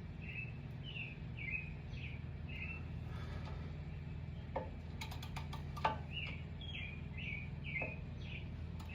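A small bird chirping over and over, about two short chirps a second, with a pause midway. Under it runs a steady low hum, and a few sharp clicks and knocks come around the middle.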